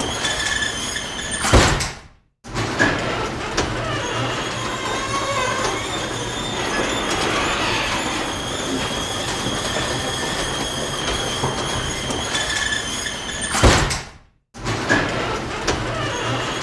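Garage door closing: a steady, noisy running sound that ends in a loud thud as the door shuts, followed by a brief dead gap. The same closing run starts again and ends in a second loud thud near the end.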